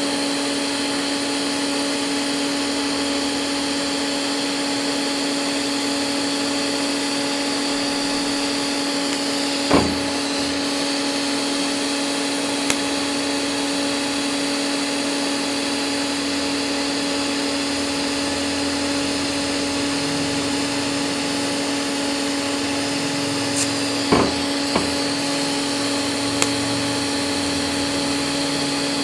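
TIG welding arc burning steadily, a continuous buzzing hiss as filler rod is fed into the weld puddle. A few sharp clicks come through it about ten seconds in and again around twenty-four seconds.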